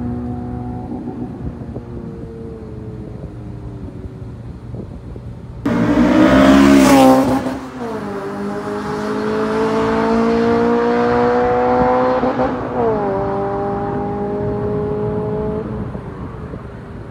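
Honda Civic Si (8th gen, FG2) with its K20Z3 2.0-litre four-cylinder, Skunk2 header and Rev9 exhaust passing close by at speed about six seconds in, its pitch dropping as it goes past. It then accelerates away, the revs climbing, falling at an upshift about twelve and a half seconds in, climbing again and fading into the distance.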